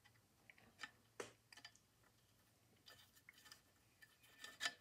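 Faint, irregular clicks and short scrapes of a screwdriver turning the small spring-loaded lock screw into the end gate of an Edison Home phonograph, the loudest click near the end.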